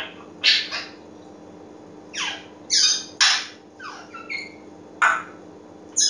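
African grey parrot giving a series of about eight short squawks and whistles, several of them sweeping down in pitch.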